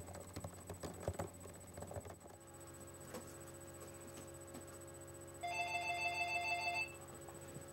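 A telephone rings once, about five seconds in: a trilling ring lasting about a second and a half. Before it come a few light clicks and knocks of handling, then a faint steady hum.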